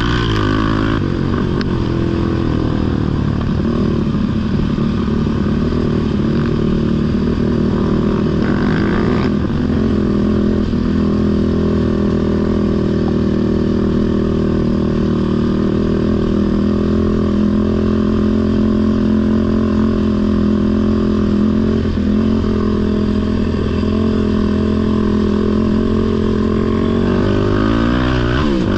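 Sport ATV engine running on a trail ride at a fairly steady throttle. The pitch holds level for long stretches, with small rises and dips in the first ten seconds and a change of revs near the end.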